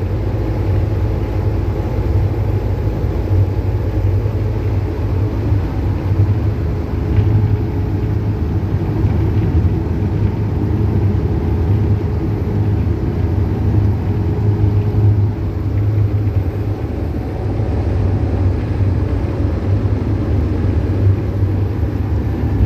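Cabin of a single-deck bus moving at a steady speed: a constant low rumble of engine and road noise, with a faint steady hum above it.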